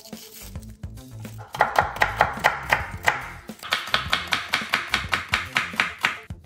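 Chef's knife slicing a red onion on a wooden cutting board: fast, even strokes, about six a second, each ending in a tap on the wood. The slicing starts about a second and a half in, breaks off briefly past the middle, then goes on until just before the end.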